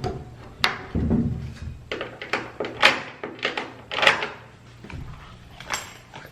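A series of sharp clicks and knocks, with a dull thump about a second in.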